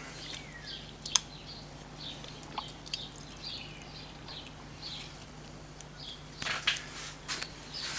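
Faint birdsong over a steady low hum, with a few light clicks and rustles of a tool being handled.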